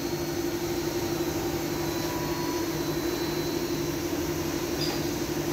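Steady hum of running machine-shop machinery: one constant low tone with weaker lower tones over an even hiss, at an even level throughout.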